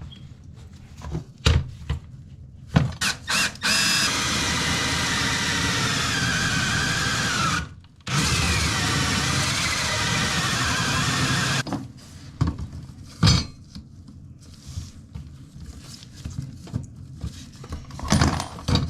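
A power drill boring into wood blocking under a toilet flange: two runs of about three and a half seconds each, the motor slowing under load at the end of the first and speeding back up at the start of the second. Knocks and clatter of handling come before and after.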